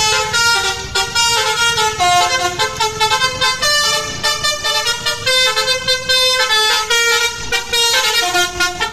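Tour bus's 'basuri' musical horn playing a melody: a tune of quick stepped notes.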